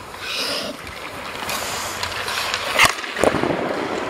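Hockey skates scraping and carving on rink ice, a steady hiss, with one sharp puck impact about three seconds in.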